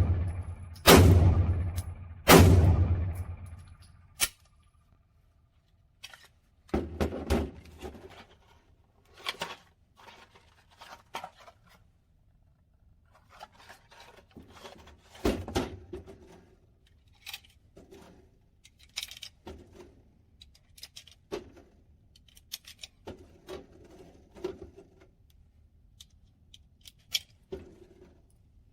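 Two shots from a Glock 43X 9mm pistol, about a second and a half apart, each ringing out. They are followed by scattered quieter clicks, knocks and a few thuds.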